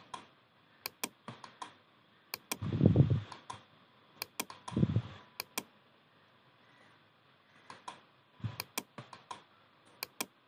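Computer mouse and keyboard clicking, sharp separate clicks in small clusters, with two louder low thuds at about three and five seconds in.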